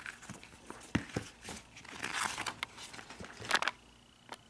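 A folded paper poster being handled and spread out: crinkling paper rustles, with a couple of sharp knocks about a second in. The rustling stops shortly before the end.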